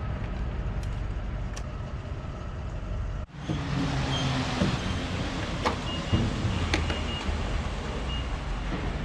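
Steady engine and road rumble of a vehicle driving, heard from inside. About three seconds in it cuts abruptly to another steady vehicle rumble, with a few short high beeps and scattered clicks.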